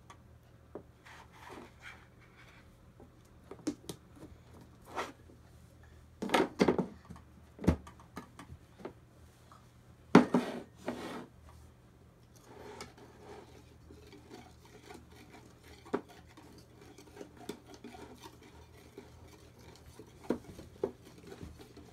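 A metal whisk and a flour can clink and knock against a mixing bowl as a small child handles them. The loudest knocks come a little over six seconds in and about ten seconds in. From about halfway on there is a stretch of whisk stirring and scraping in the batter.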